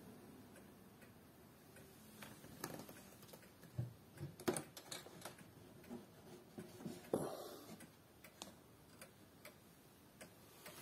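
Antique pendulum wall clock ticking faintly and steadily. A few louder knocks from handling of the wooden case come in the middle, the loudest about seven seconds in as the case door is opened.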